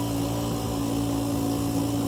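A steady machine hum with several fixed tones over a low hiss, unchanging throughout.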